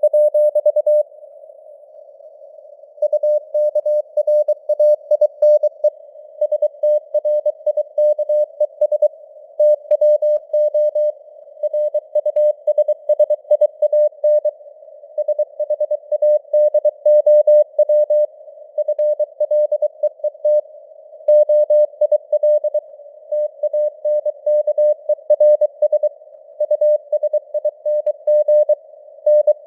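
Morse code (CW) sent at 23 words per minute as a single mid-pitched tone keyed on and off in dots and dashes, over a narrow hiss of simulated radio band noise, like a signal heard on a shortwave receiver. Sending stops for about two seconds just after the start, then runs on without a break.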